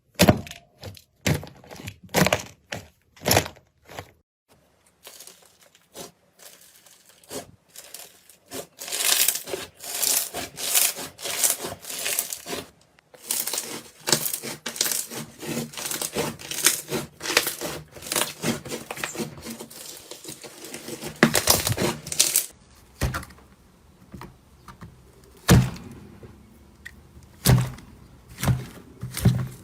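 Slime being squeezed and pressed by hand, giving crisp crackles and pops. A long run of rapid crackling fills the middle, and a few deeper, sharper pops come near the end.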